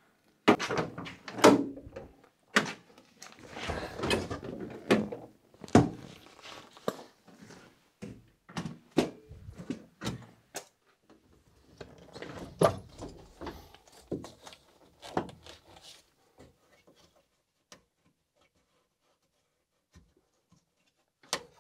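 A run of knocks, clunks and rattles from handling the cab fittings of a UAZ 452 van as the seat and engine cover over the engine are lifted. The sounds die away to a few faint ticks over the last few seconds.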